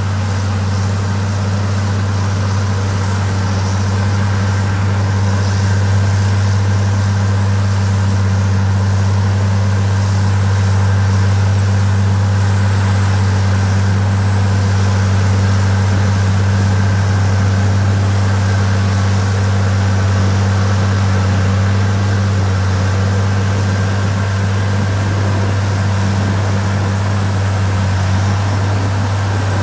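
Diesel engine of a GAME Equipment 95ATX four-wheel-drive tractor running steadily as it tows a pull-type earthmoving scraper, a deep even drone with a thin high whine above it.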